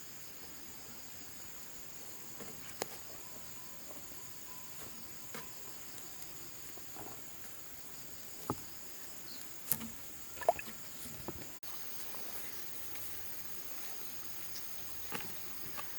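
Insects chirping in a steady high-pitched chorus, with scattered light clicks and knocks, most of them about halfway through.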